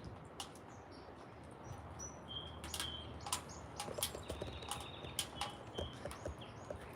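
Faint chatter of a flock of European starlings: short whistled notes and scattered clicks, busier from about two seconds in.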